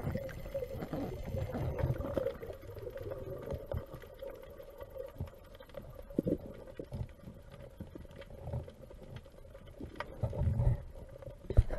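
Muffled underwater noise heard through a camera housing: a low rumble with scattered knocks and clicks, and a faint wavering hum over the first few seconds.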